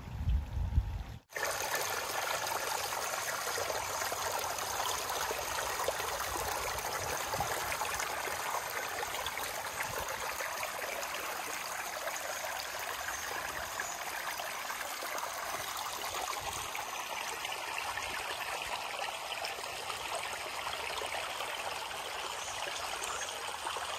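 Shallow creek trickling steadily over rocks and pebbles. A brief low rumble comes in the first second or so, then stops abruptly.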